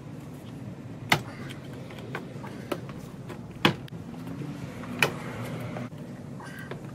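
Stock plastic grille of a 1998–2002 Camaro being ripped out of the front bumper cover by hand, with four sharp snaps and a few smaller clicks as it pulls free of the retainer nuts on its back.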